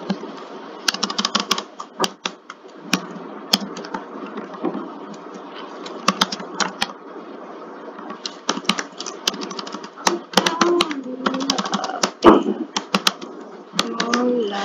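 Typing on a computer keyboard: quick irregular runs of keystroke clicks, broken by short pauses.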